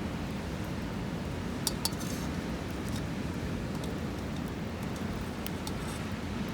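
Steady low rumble of sea waves and wind, with a few sharp light clicks about two seconds in and faint ticks later.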